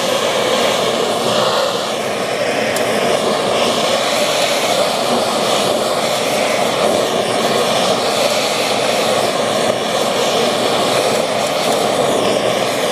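Bernzomatic TS8000 propane torch burning at a high flame, a loud steady rushing hiss. It is turned up to heat an aluminum pipe to brazing temperature.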